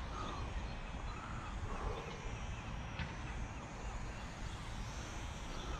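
Wind buffeting the microphone in an open field: a steady low rumble over faint outdoor background, with a few faint brief calls.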